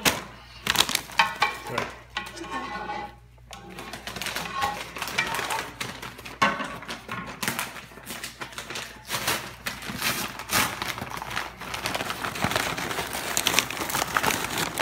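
Kitchen handling noises: rapid clicks, clatter and crinkling as tortilla chips and toppings are layered into a metal ring mold, with indistinct voices now and then.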